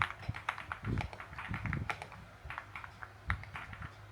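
Typing on a Leobog Hi75 mechanical keyboard with Flexible V3 linear switches: irregular key clacks, a few a second, each with a dull thud as the key bottoms out.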